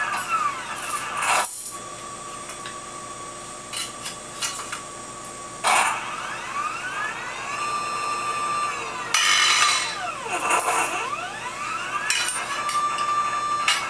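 CNC wire bender bending 5/32 piano wire: its drive motor whines up in pitch, holds a steady tone and winds back down, over several moves in a row. Short scraping bursts come between the moves.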